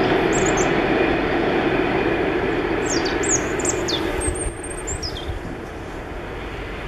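Freight train rolling away on the line, its running noise fading and dropping off sharply about four and a half seconds in. Small birds chirp in short, high, sliding notes near the start and several times in the middle.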